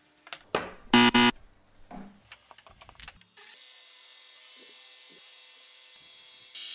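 Bandsaw cutting through a thick block of wood: a steady high hiss with a thin whistling tone, starting about three and a half seconds in. Before it, a short high-pitched squeak about a second in.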